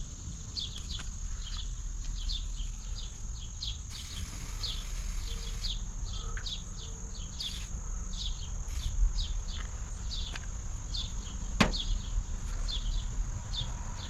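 Small birds chirping: short high falling chirps repeat about twice a second over a steady high whine. One sharp click comes about three-quarters of the way through.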